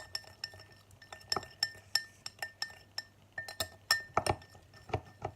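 A utensil clinking against the side of a bowl while slime is stirred: a quick, irregular run of sharp taps, about three a second, each leaving a short ring from the bowl.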